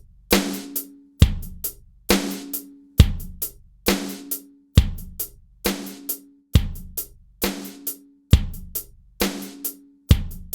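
A drum loop playing back with replacement samples: kick, fat rim shot and hi-hat in a steady repeating groove. Strong hits come a little under a second apart with lighter hi-hat ticks between, and some hits ring briefly with a short pitched tone.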